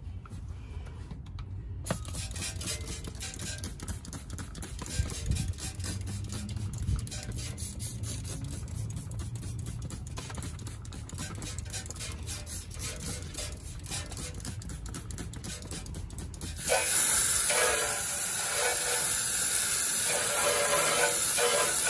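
A hand trigger spray bottle squirting cleaner onto a rusty car muffler, in many short repeated sprays. About three-quarters of the way through, a loud, steady hissing jet of high-pressure water starts suddenly, spraying the muffler and the car's underside.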